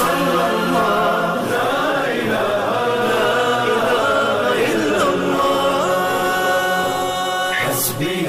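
Background music: an Islamic devotional song (nasheed), with voices chanting long, held notes and no clear words.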